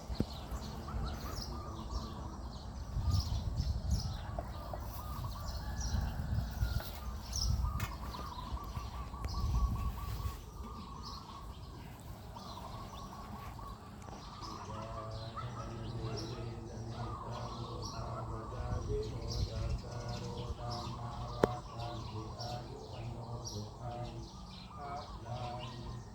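Many birds chirping throughout, with a run of repeated lower, short calls from about halfway through. A low rumbling noise sits under the first ten seconds, and there is a single sharp click late on.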